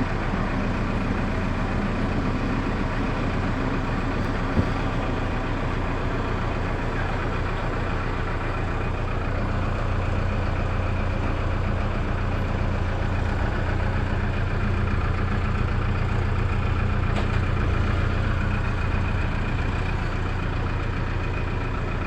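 JCB backhoe loader's diesel engine running steadily with a low drone, with one sharp knock about four and a half seconds in.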